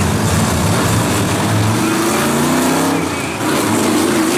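Two vintage sedans' engines at full throttle as they launch off a drag strip's starting line and accelerate away. The engine pitch climbs, dips briefly a little past three seconds in, then climbs again.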